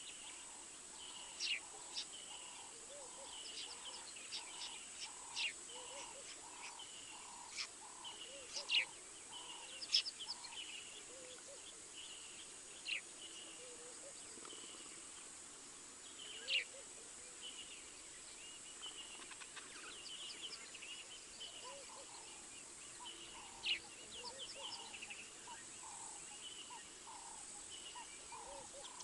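Wild birds calling: sharp high chirps every second or two over a steady run of repeated low notes, about two a second, that pauses in the middle and starts again. A thin steady high tone runs underneath.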